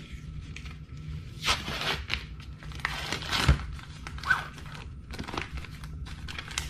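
Clear plastic film being peeled off a plastic meat tray, crinkling and tearing in several short bursts, with one sharp knock about halfway through.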